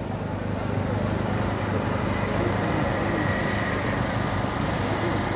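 Steady low outdoor background rumble of a city, with no distinct events.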